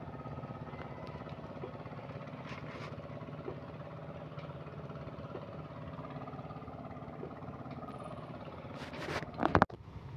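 An engine running steadily at idle, with no change in speed, then a short burst of loud knocks and clatter about nine seconds in.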